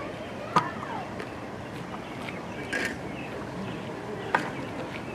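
Open-air street ambience with faint, indistinct voices of bystanders and two sharp clicks, one about half a second in and one about four seconds later.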